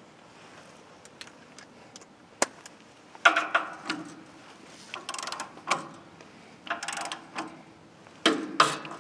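Hand adjustment work on a bandsaw mill's blade wheel: several faint clicks, then four short bursts of metallic clicking and rattling about every second and a half, like wrench strokes on the tracking or tension bolts.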